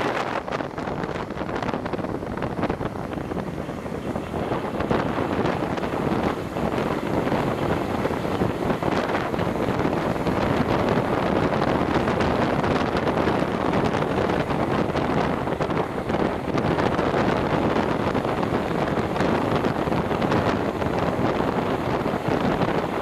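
Wind buffeting a microphone held out of the window of a moving passenger train, over the train's running noise on the rails.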